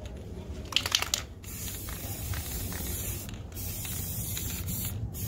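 Aerosol spray-paint can spraying in long hissing bursts with a couple of brief breaks, after a few sharp clicks about a second in.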